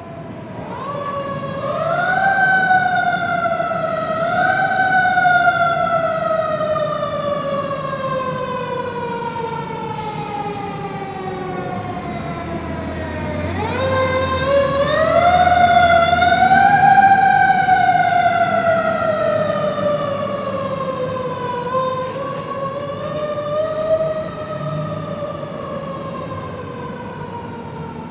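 Fire truck siren wailing. Its pitch climbs twice near the start, then slowly falls for about ten seconds. About halfway through it winds up again to its loudest, then slowly falls away with one small rise near the end. A low engine rumble sits underneath in the middle.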